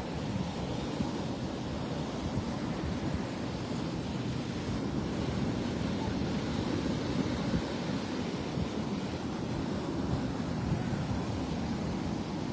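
Rough Gulf surf washing steadily onto the beach, with wind rumbling on the microphone.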